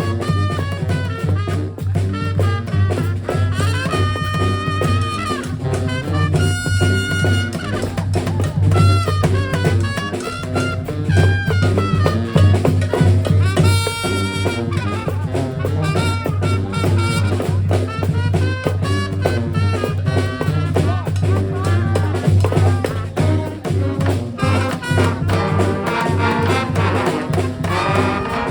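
Live street brass band playing: horns carrying the tune over a steady drum beat and a low, sustained bass line, with long high held notes about four and seven seconds in.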